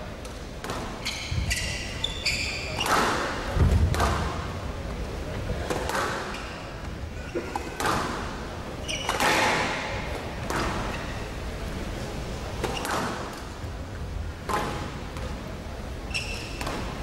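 Squash rally: the ball cracks off rackets and walls, a sharp echoing strike every second or two, mixed with short high squeaks of players' shoes on the court floor.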